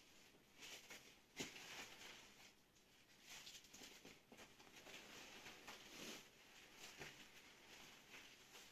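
Faint rustling and small ticks of fingers handling a CR2032 lithium coin cell, with one sharper click about a second and a half in.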